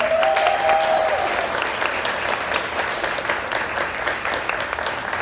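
Audience applauding, many people clapping steadily, with a short cheering voice over it in the first second.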